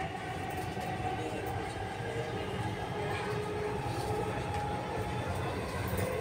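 Dubai Metro train running along the line, heard from inside the passenger car: a steady low rumble with a faint whine above it.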